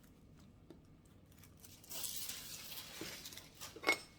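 Rustling of a sheet of pastry being handled and laid over the top of a pie, lasting about a second from roughly halfway in, followed by a few light taps and one short sharp knock near the end.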